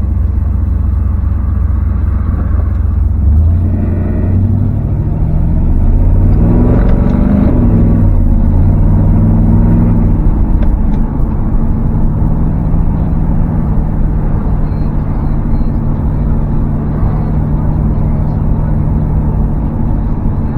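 LS V8 engine in a 1987 Camaro accelerating, its pitch climbing for several seconds. It drops with a gear change about eleven seconds in, then runs at a steady cruise.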